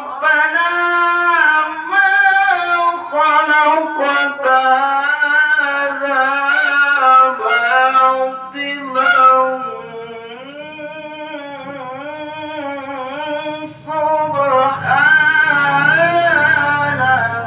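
A male qari reciting the Qur'an in Arabic in the melodic tilawah style, holding long, ornamented notes. The phrase drops quieter about ten seconds in and rises again a few seconds before the end.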